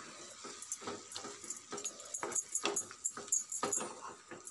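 A spatula stirring chicken and tomato pieces in a pan, giving irregular scrapes and clicks against the pan.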